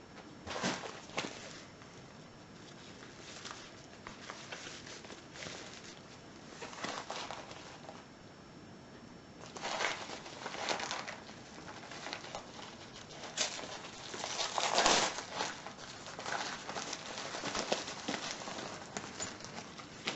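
Bubble wrap and packaging crinkling and rustling by hand in irregular bursts as a parcel is unwrapped, the loudest burst about three-quarters of the way in.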